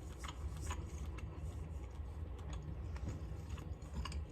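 A person chewing a bite of meatless breakfast sausage patty: small scattered mouth clicks over a low steady hum.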